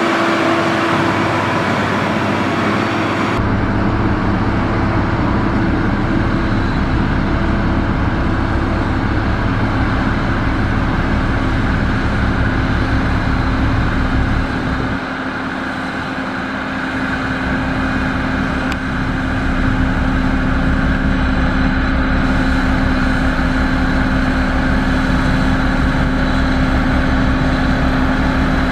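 Heavy diesel engine of a motor grader running steadily with a low throb. The sound changes abruptly about three seconds in, and it grows quieter for a few seconds midway before coming back up.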